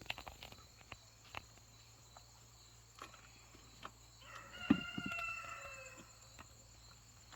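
A rooster crowing once: one long call, falling slightly in pitch, starting about four seconds in. A low thump comes early in the crow, and a few light knocks come near the start.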